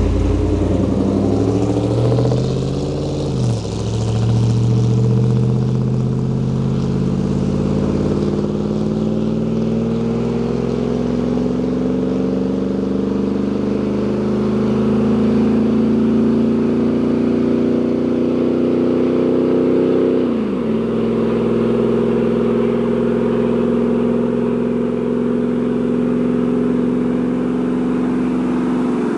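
2000 Chevrolet Silverado's 4.8 L V8 accelerating hard through a muffler with its fiberglass packing removed. The engine note climbs steadily, then drops sharply twice as it shifts up, about three and a half seconds in and again about twenty seconds in.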